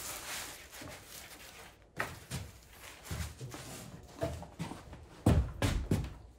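Mylar sheet crinkling under the hands as it is pressed and smoothed flat. Then footsteps and handling knocks, and near the end a series of heavier, evenly spaced thumps.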